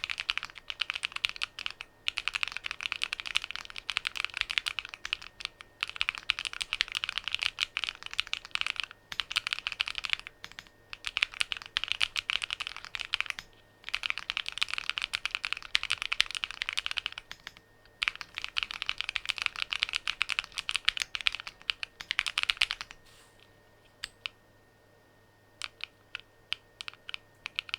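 Hand-built Alice-layout mechanical keyboard being typed on quickly, in runs of a few seconds broken by short pauses. Near the end, only scattered single keystrokes.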